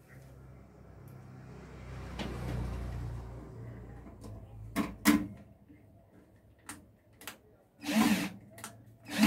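Workshop handling of a microwave oven under repair: a low motor hum swells and fades over the first few seconds, then a series of sharp clicks and knocks of tools and metal parts, with a louder scraping burst near the end.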